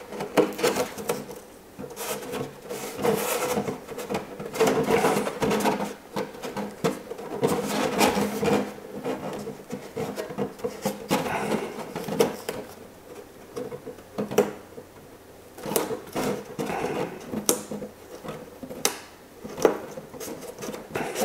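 A thin clear plastic RC car body being handled and flexed, with irregular crackles, rustles and taps as masking tape is pressed along its edges.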